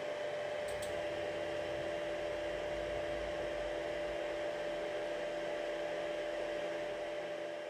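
Makera Carvera desktop CNC running its automatic tool changer on a tool-release command: a steady electrical hum with a constant whine. A small click comes about a second in, and a second, lower whine then joins and stops near the end.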